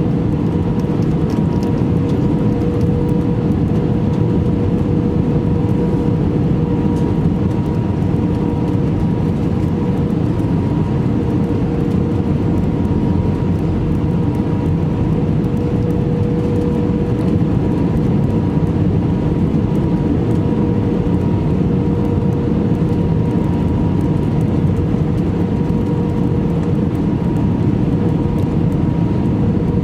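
Steady cabin noise inside an Airbus A319: a constant rush of engine and airflow noise with a steady hum at two pitches.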